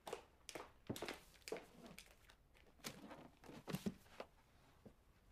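A series of light, irregular knocks and taps on a hard surface, about two a second at first, then sparser, with a cluster of three close together near the end.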